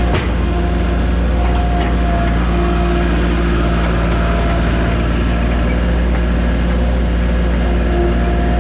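Tractor's diesel engine running steadily under load, with a faint on-and-off whine above it. A single brief knock comes just after the start.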